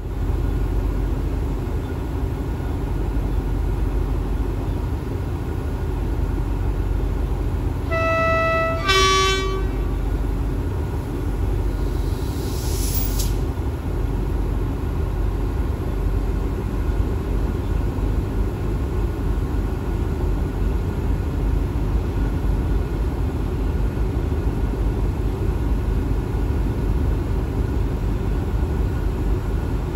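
Alsthom diesel-electric locomotive idling close by with a steady low rumble. About eight seconds in, a locomotive horn sounds two short notes, the first higher and the second lower.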